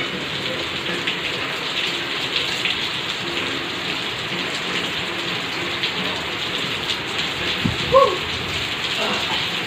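Heavy rain and hail pouring down in a steady downpour, with many small sharp hits scattered through it. About eight seconds in there is a brief rising tone, the loudest moment.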